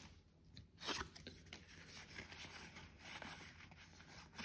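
Faint crinkling and small clicks from a foil Pokémon booster pack wrapper and its cards being handled as the pack is opened, with one slightly louder crackle about a second in.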